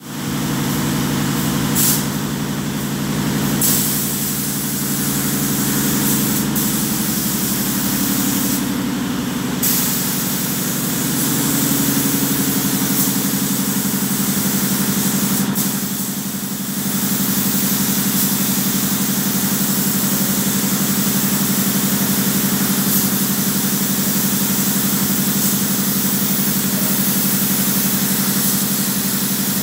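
A compressed-air paint spray gun hissing over a steady low machine hum. The hiss surges briefly a few times.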